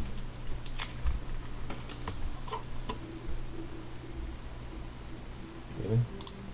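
Light scattered clicks and taps of a trading card in a rigid plastic toploader being handled, over a steady low hum. A short low sound comes near the end.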